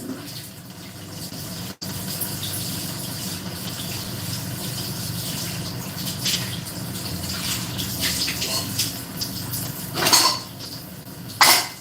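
Kitchen noises: a steady background hum with scattered light clinks of pots and utensils, and two louder clattering bursts near the end.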